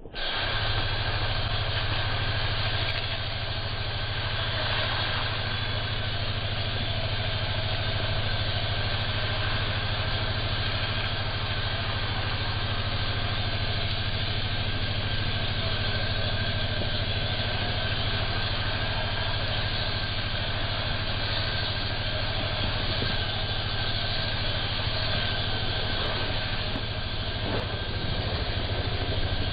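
A motor-driven machine running steadily, a constant hum with an unchanging pitch.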